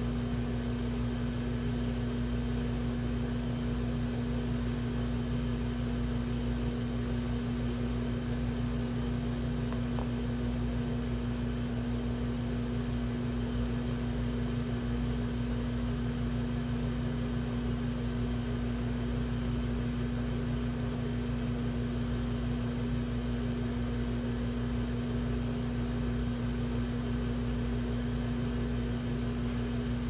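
A steady machine hum with one strong constant tone, unchanging in level throughout.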